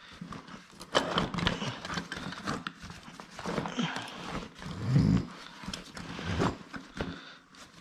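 Hand tools clattering and clinking against each other and a fabric tool bag rustling as gloved hands rummage through it, with a dull thump about five seconds in.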